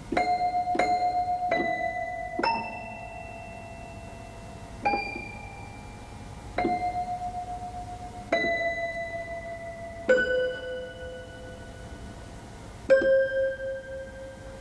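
Upright piano played one note at a time: nine single notes in all, the first four in quick succession, the rest a second or two apart, each left to ring and die away.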